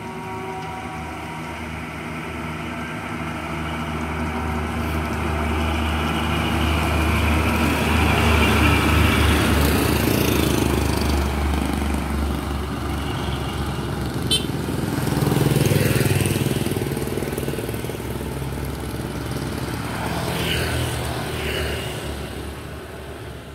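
Loaded diesel dump truck approaching and passing close on a road, its low engine drone swelling to loudest about nine seconds in and then fading as it pulls away. A motorcycle passes soon after, with a second swell of engine sound.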